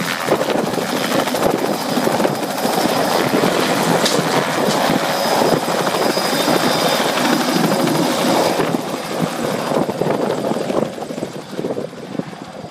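Bell 206 JetRanger helicopter lifting off and flying away: turbine whine and rotor blade chop, loud and steady, then fading over the last two seconds.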